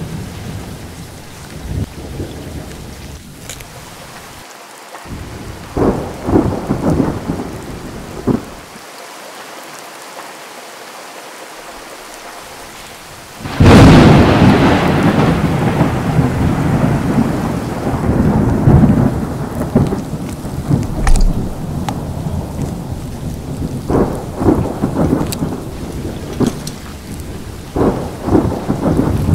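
Thunderstorm: steady rain with rumbles of thunder, and a loud thunderclap about halfway through that rolls away over several seconds.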